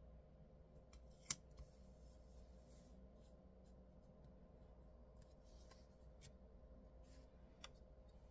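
Faint handling of stickers and paper on a planner page: small rustles and light clicks, with one sharp click about a second in.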